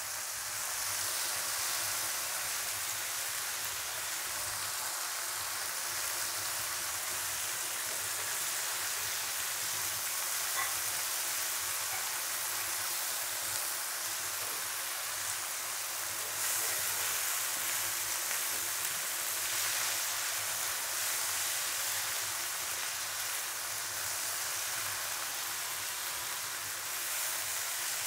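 Steady sizzling of green chillies, shallots and green tomatoes stir-frying in oil in a non-stick wok, turned now and then with a silicone spatula, as the tomatoes' juice cooks down.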